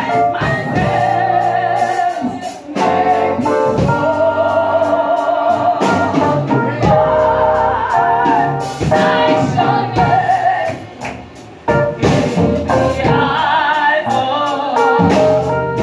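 A woman sings a gospel song into a handheld microphone, her voice carried loud through the PA with a wavering vibrato, over keyboard chords and a drum kit. The music dips briefly just before the end, then comes back in.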